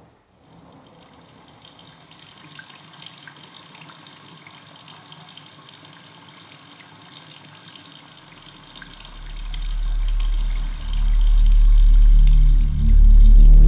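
Bathroom sink faucet running, a steady stream of water splashing into the basin over hands. About nine seconds in, a deep low drone swells up and becomes loud, drowning out the water.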